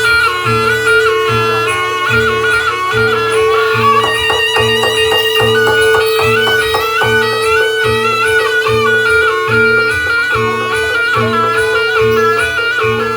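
Live barongan music: a shrill reed wind instrument plays a wavering melody over a steady held note, with a low drum beat about every three-quarters of a second. A run of quick drum strokes comes about four seconds in.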